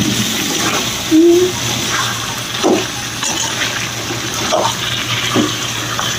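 Chicken pieces and onions sizzling in a pan in the water the chicken has let out, with a few short scrapes of a spoon stirring them.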